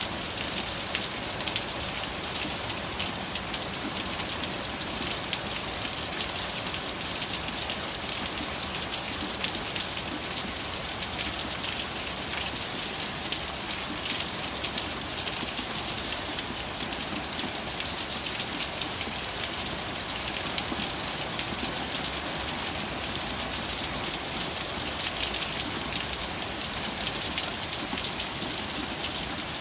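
Steady rain falling, a dense even hiss of many small drops pattering on surfaces.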